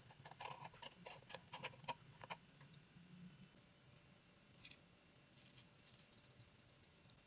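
Faint metal clinks and taps of a metal utensil against the mini martabak pan, a quick run of them over the first two and a half seconds. Later come two short soft rustles as chocolate sprinkles are spooned onto the cakes.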